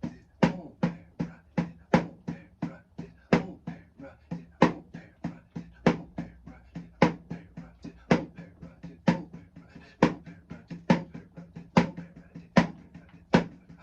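Drum played in a paradiddle rudiment: a steady run of sticking strokes, about three to four a second, with loud accented strokes standing out above softer notes, and the drum ringing under them.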